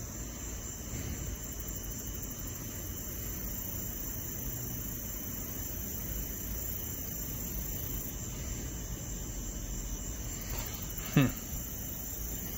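Crickets chirring steadily on a warm night over a low rumble of traffic on a busy road. Near the end comes one short, loud falling sound.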